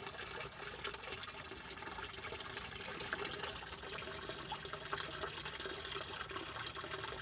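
Running water trickling steadily in a small backyard pond.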